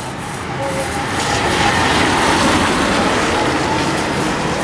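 A heavy road vehicle driving past close by, its engine and tyre noise building over the first two seconds and then holding steady.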